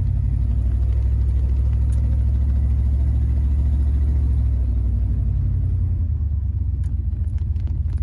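1972 Buick GS 455's 455 cubic-inch V8 running low and steady as the convertible drives, heard from inside the car, easing a little about six seconds in. The engine has a miss.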